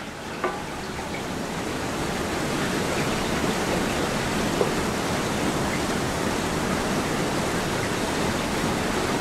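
Steady rush of a river running over rapids, swelling over the first couple of seconds and then holding even, with a light click about half a second in as a metal hatch lid is lifted.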